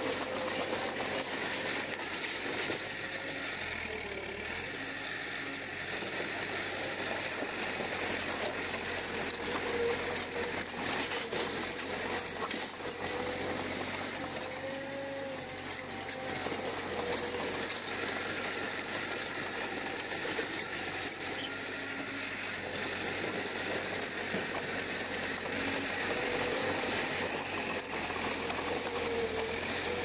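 Komatsu crawler bulldozer at work: its diesel engine runs steadily while the steel tracks keep up a dense clanking and rattling, with a wavering whine that comes and goes.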